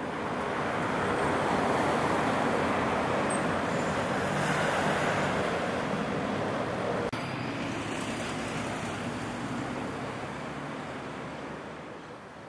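Road traffic noise from cars driving past, a steady hum of engines and tyres. It has a brief dropout about seven seconds in and fades out near the end.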